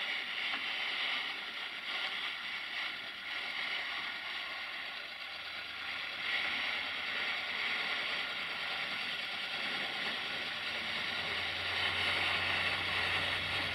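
Steel snow-plow blade on a SAME Taurus 60 DT tractor scraping along the road and pushing snow, a steady hissing scrape, with the tractor's diesel engine running beneath it and growing louder in the second half as the tractor comes closer.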